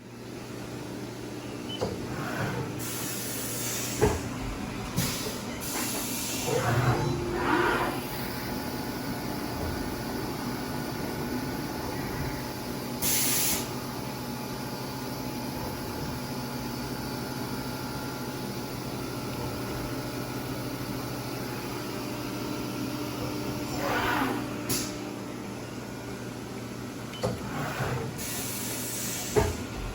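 CNC vertical mill running: a steady hum with held tones, a few short whines that rise and fall, and a brief burst of air hiss about 13 seconds in.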